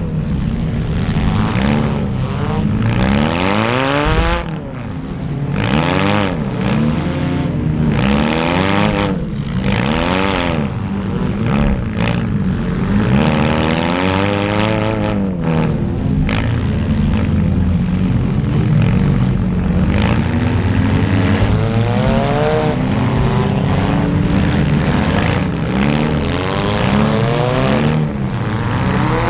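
Several small cars' engines in a demolition derby revving up and down repeatedly, pitch rising and falling every second or two as the cars reverse and charge.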